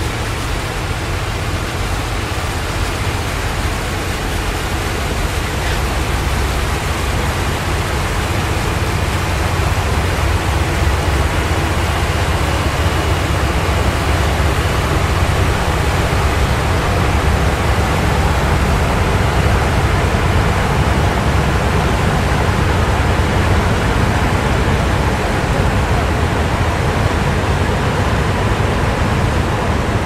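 Loud diesel motorboat engine running steadily as the boat moves, a deep low drone under a broad rushing hiss. It grows a little louder about ten seconds in and then holds.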